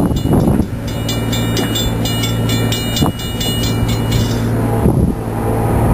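Diesel locomotives of an approaching Norfolk Southern freight train, a steady low engine drone.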